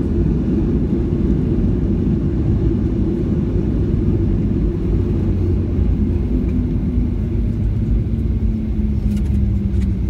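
Cabin rumble of a Boeing 737-800 rolling down the runway after touchdown: steady engine and wheel noise, with a low engine tone that falls in pitch over the second half as the jet slows.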